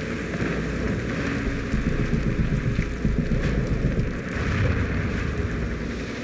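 A large fire burning, with a steady low rumble and a crackling hiss.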